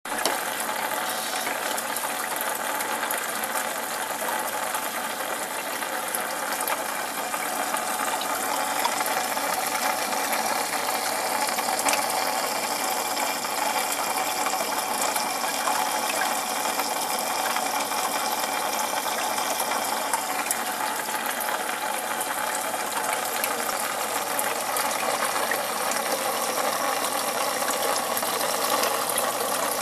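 Aquarium equipment running: a steady dense crackling rattle with a hiss, unchanging throughout.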